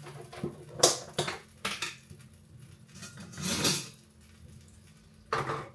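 Kitchen clatter of a metal ladle and soup pot being handled: several sharp knocks in the first two seconds, a longer scraping sound about three and a half seconds in, and one more knock near the end.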